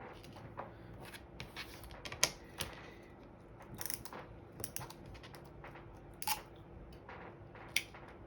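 Scattered light clicks and taps of a cardstock-and-plastic shaker cake topper being handled, at irregular intervals, over a faint steady hum.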